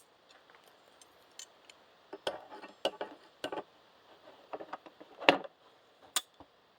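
Metal tool clinking and clicking against metal transmission parts as it is worked into position: irregular sharp clicks and small knocks, with one louder knock about five seconds in.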